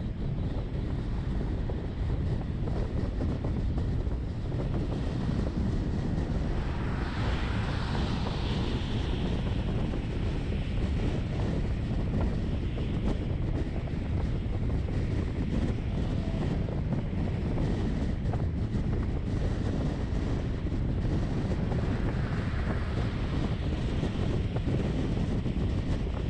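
Steady low rumble of a vehicle driving along a city road: engine and tyre noise. Two brief swells of hiss rise over it, about seven seconds in and again near twenty-two seconds.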